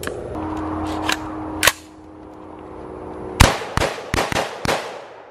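A string of semi-automatic rifle shots, about seven in all: one about a second in, a louder one just after, then five more fired quickly in under a second and a half.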